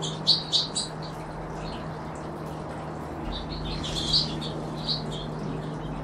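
Small finches chirping in short, high calls: a quick run of chirps in the first second, then another cluster about four to five seconds in.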